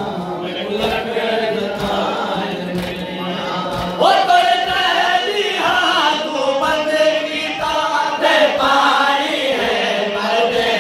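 A group of men chanting a noha, a Shia Muharram lament, in unison, louder from about four seconds in, with chest-beating (matam) thumps about once a second.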